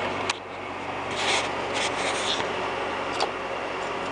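Hand tap being turned by a socket extension in a stripped bolt hole in a chainsaw's aluminium cylinder, cutting oversize threads for a helicoil. A sharp click, then a few short rasping metal scrapes, and another click near the end, over a steady hum.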